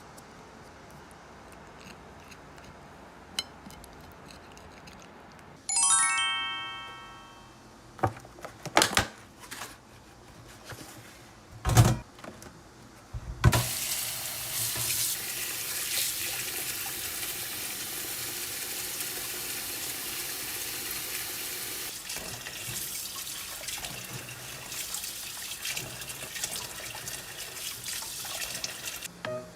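A short chime rings about six seconds in and fades, followed by a few sharp knocks and clatters; then a kitchen tap runs water into a sink steadily for the rest of the time.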